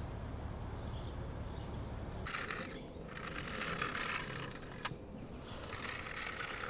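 A child's toy truck on a concrete sidewalk, giving three short rattling, gritty bursts of about half a second to a second each, with a single sharp click between the second and third.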